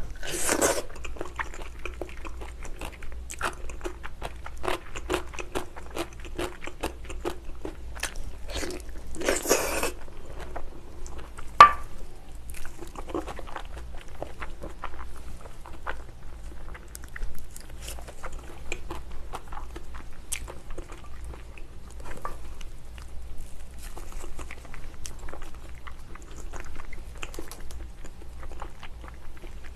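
Close-miked wet chewing and biting of soft, gelatinous braised ox foot, a steady run of small smacking clicks. Two louder noisy bursts come about half a second in and near ten seconds in, and one sharp click just before twelve seconds.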